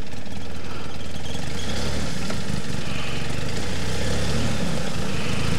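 Polaris Ranger side-by-side's engine running at low revs as it backs slowly along a trail, the engine note swelling slightly about two seconds in.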